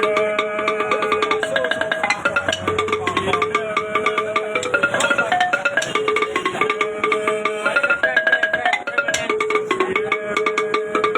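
Music: a fast, repeating melody of quick struck or plucked notes over dense, rapid percussion.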